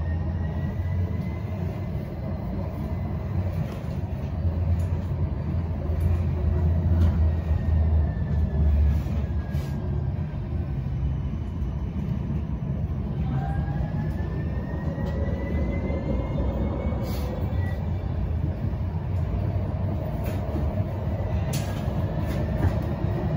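Siemens Avanto tram-train heard from inside the car while running: steady rumble of wheels on rail with the electric traction whine falling in pitch over the first ten seconds or so as it slows, then rising again from about thirteen seconds in as it picks up speed. A few sharp clicks cut through the rumble.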